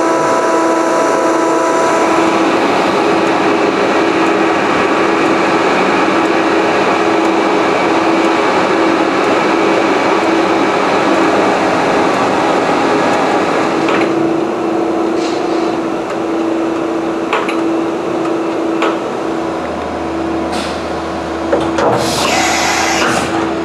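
CNC plate drilling machine running: a steady machine whir and hum with one held tone, with a few sharp clicks in the second half. Near the end comes a short, loud hiss as the automatic tool changer swaps tools.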